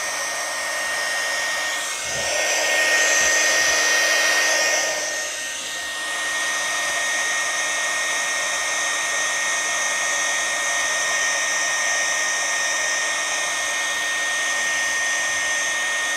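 Worx MakerX WX743 cordless heat gun running, blowing hot air onto heat-shrink tubing over a soldered connector. It gives a steady rush of air with a thin, high, steady whine from its fan. The sound is louder for a few seconds near the start.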